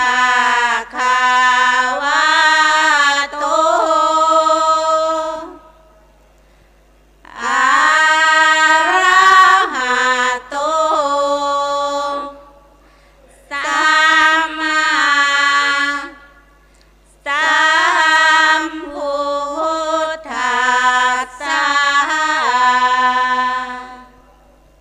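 A woman's solo voice chanting Thai Buddhist sarabhanya verse into a microphone, unaccompanied, in four long phrases of slow, sliding melismatic notes with short pauses between them.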